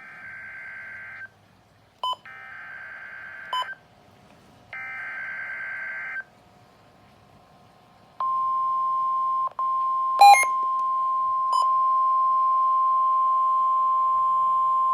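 Emergency Alert System SAME header: three screechy bursts of digital data tones, each a little over a second with about a second's gap between them, then the steady, loud alert attention tone starting about eight seconds in and holding, broken once for a moment, with a short sharp click about ten seconds in.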